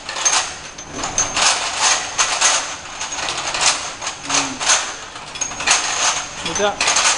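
Automatic horizontal labeling machine running, with small capped vials rattling along its roller conveyor in irregular clattering bursts about twice a second over a thin steady high whine.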